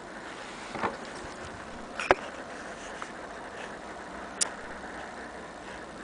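Scattered mechanical clicks and a knock from a vintage Bar-Let portable typewriter being handled at its keys, four in all with the sharpest about two seconds in, over a steady hiss.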